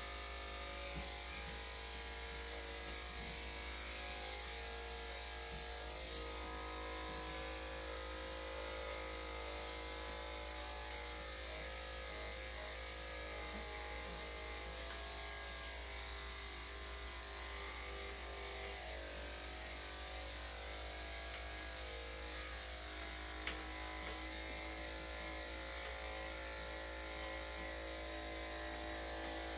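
Electric dog clippers fitted with a #5 blade running steadily, a continuous motor hum, with one brief click about two-thirds of the way through.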